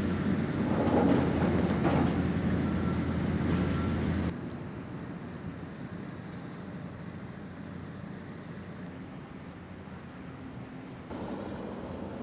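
An engine running with a steady low hum, busiest about a second or two in, then cut off abruptly about four seconds in, leaving a quieter steady background.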